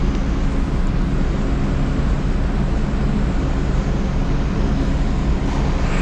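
Steady low drone of a running vehicle engine with constant hum tones and noise, no change in speed.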